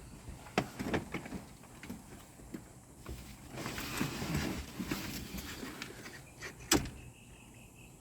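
Knocks, clicks and shuffling of someone climbing into the seating area of a Dormobile camper van. A rustling stretch comes midway and one sharp knock comes near the end.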